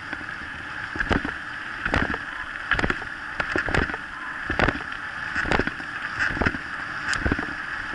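Kick scooter rolling fast over a gravel track, a steady rushing crunch of tyres on gravel, with regular thuds a little faster than once a second.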